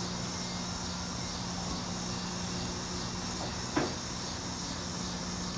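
Steady high chorus of insects, with a constant low hum beneath it and one brief sound about four seconds in.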